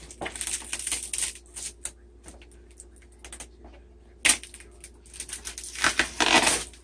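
Packing tape being cut and torn off a cardboard mailing box: scattered crackling and scraping of tape and cardboard, a sharp rip a little after four seconds in, and louder tearing near the end.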